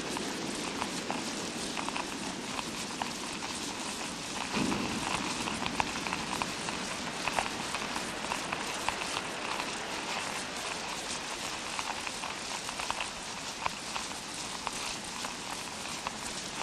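Fake rain sound effect: a steady hiss dense with many small irregular ticks, imitating rain falling on a surface. A brief low thud sounds about four and a half seconds in.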